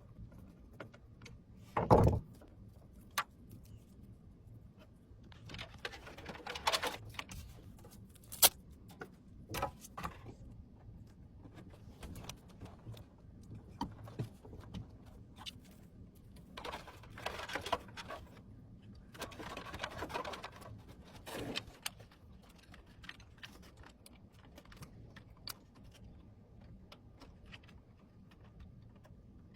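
Handling of computer hardware: scattered clicks and knocks with short stretches of rustling, and one loud knock about two seconds in.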